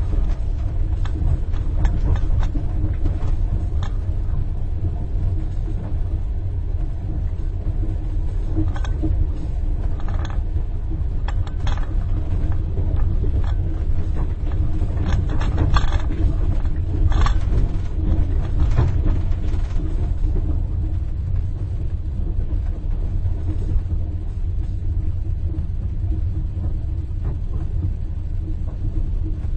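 Steady low rumble of a moving train heard inside a railway compartment, with a spoon tinkling against the inside of a cup in short clinks, most of them in the middle stretch.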